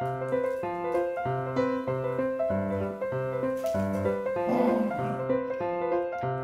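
Solo piano music, single notes and chords following one another at an even, unhurried pace.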